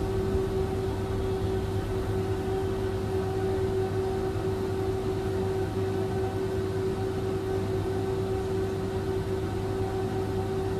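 Steady electrical hum inside a standing tram, with a constant mid-pitched tone over a low drone and no clatter of wheels on rails.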